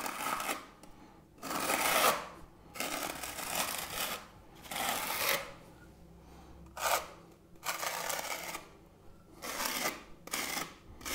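Steel plastering spatula held upright and scraped hard across semi-dry travertine decorative plaster, about eight rasping strokes with short pauses between them, tearing the surface into a stone-like scratched texture.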